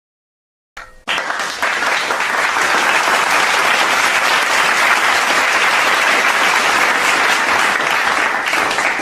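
Audience applause sound effect: many hands clapping in a dense, steady patter that starts about a second in and cuts off abruptly near the end.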